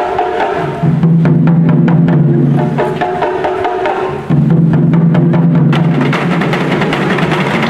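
Taiko ensemble drumming: several barrel-shaped taiko drums struck together with wooden sticks in a fast, dense rhythm.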